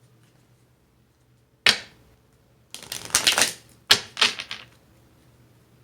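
A deck of tarot cards being handled: a sharp knock, a burst of rustling card shuffling, a second knock, then another short shuffle.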